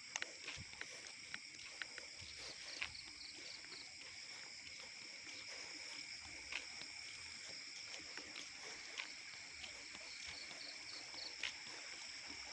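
Night insect chorus: steady high-pitched trilling in two layers, with short runs of rapid chirps twice, and scattered soft clicks and taps.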